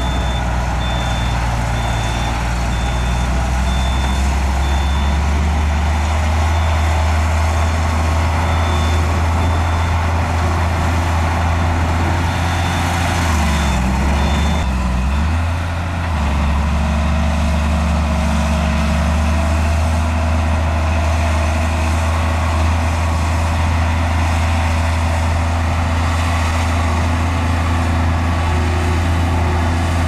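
Heavy diesel engine of earthmoving machinery running steadily under load. Its revs dip and climb back about halfway through. A reversing alarm beeps over it, stopping about halfway through.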